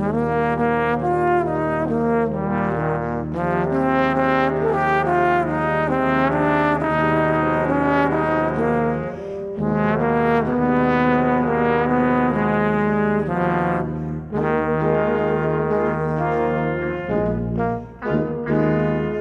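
Solo trombone playing with a brass quintet accompaniment of trumpet, French horn, tuba and second trombone, over held low tuba notes. The phrases break briefly about nine and fourteen seconds in, and the notes turn short and detached near the end.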